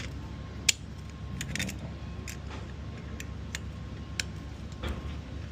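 Scattered light metallic clinks and taps of hand tools and parts being handled during motorcycle front-sprocket work, the sharpest a little under a second in, over a steady low hum.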